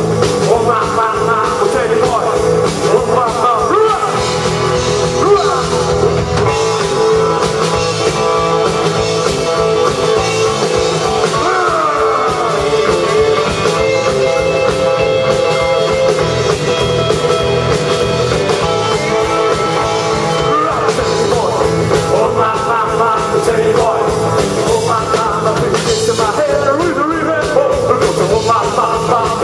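Live rock and roll band playing loudly: electric guitars, electric bass and drum kit keeping a steady beat.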